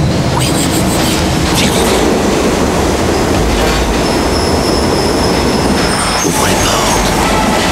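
Subway train running, heard from inside the car: a steady loud rumble, with the wheels squealing in a thin high tone for a couple of seconds midway and a few sharp clacks from the track.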